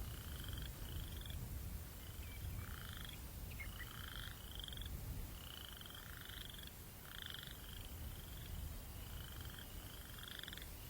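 Frogs calling over and over in short buzzy trills, about one call a second, some calls ending in a higher rising note, over a steady low rumble of breeze.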